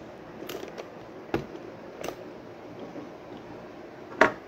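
A few short clicks and knocks as a car amplifier module's metal heatsink casing is handled and shifted on a table, with the loudest knock near the end.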